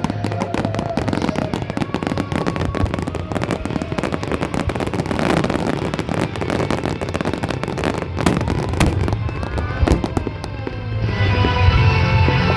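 Fireworks crackling and popping densely, with music playing underneath that swells in the last second or two.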